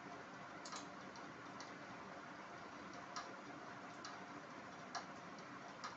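Faint, irregular clicks of clothes hangers knocking on a metal hanging rail as garments are hung up and taken down.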